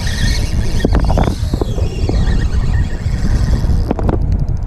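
Steady, rough low rumble of wind buffeting the microphone on a boat at sea, with a few sharp knocks about a second in and again near the end as the rod and spinning reel are handled during the fight with a fish.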